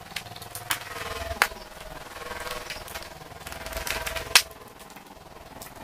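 Screwdriver and loose fan parts clicking and clacking against a stand fan's metal motor and plastic arm on a tile floor during disassembly. A few sharp, separate clicks, the loudest about four seconds in.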